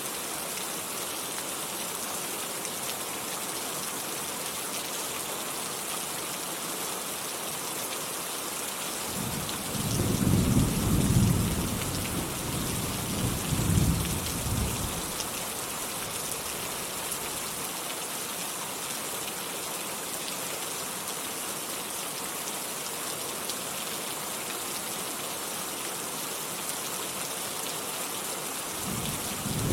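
Steady rain falling, with a long roll of thunder about a third of the way in that rumbles for several seconds and fades out, and another roll beginning at the very end.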